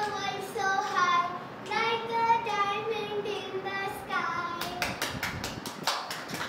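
Group of children singing a song together in unison, then about two seconds of quick, regular hand clapping near the end, roughly five claps a second.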